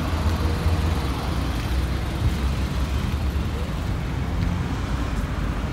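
Steady low rumble of road traffic, with no single event standing out.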